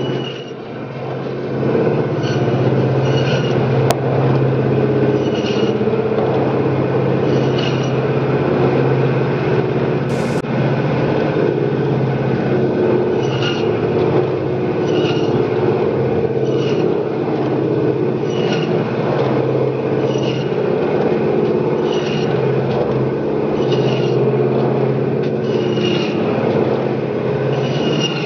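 Electric meat bandsaw running with a steady motor hum while its blade cuts through a piece of lamb. A brief, sharper rasp comes with each pass of the meat through the blade, every second or two.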